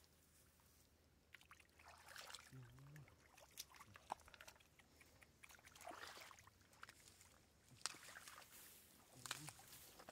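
Faint, scattered splashes and wet slaps of fish flopping and thrashing in shallow muddy water, with a few sharper splashes among them.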